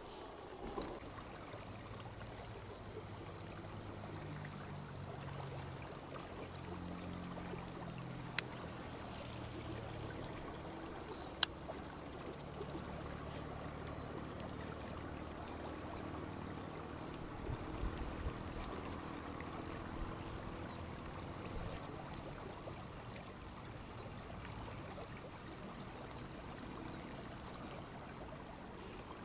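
Steady rush of a flowing river, with two sharp clicks about eight and eleven and a half seconds in.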